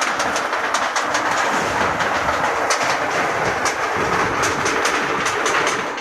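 Roll-forming machine running, shaping galvalume steel coil into V-shaped ridge cap: a steady mechanical clatter with rapid, irregular metallic clicks and rattles.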